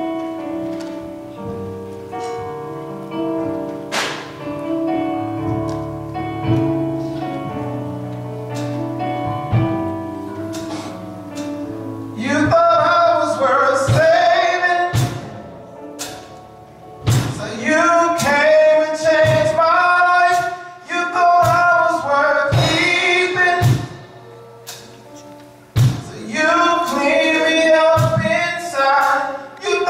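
Keyboard playing held gospel chords, joined about twelve seconds in by a man singing into a microphone, with the keyboard accompanying him.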